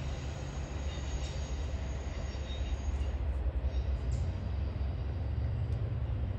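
The tail end of a Norfolk Southern intermodal freight train rolling past, container cars rumbling on the rails with faint wheel squeal that fades out about three seconds in as the last car goes by.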